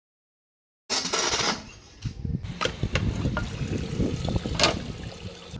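A short burst of hiss about a second in, then scattered light clinks and knocks over a low, uneven rumble.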